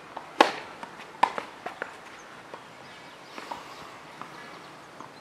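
A tennis ball struck hard by a racket, a sharp pock, then a second strike about a second later and a few lighter knocks of the ball. Footsteps on the clay court follow.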